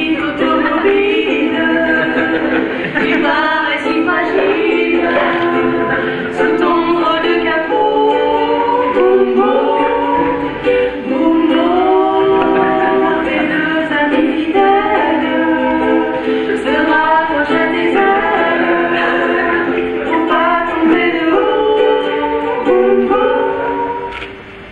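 Two women singing a song together, mostly voices alone with at most light ukulele; the singing stops just before the end.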